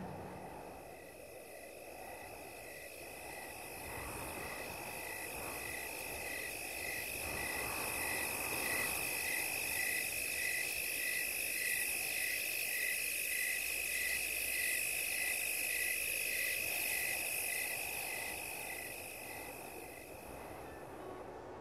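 Chorus of insects such as crickets: one chirps steadily about twice a second over a continuous high trill and a shrill hiss from others.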